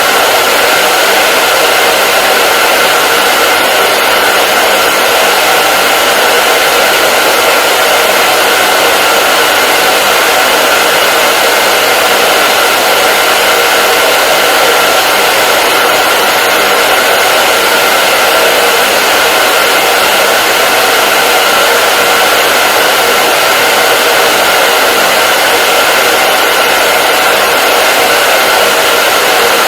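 Hair dryer running steadily: an even rush of blown air with a steady whine from the motor and fan.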